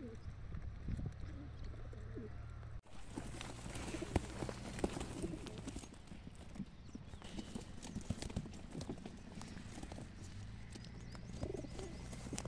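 Racing pigeons cooing in plastic transport crates. Their feet and wings make many small clicks and scratches on the crate plastic.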